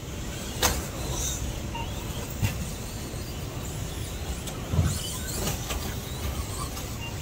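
Electric RC stadium trucks racing over an artificial-turf track: thin motor whines rising and falling, with a few sharp knocks, the loudest a heavy thump about five seconds in.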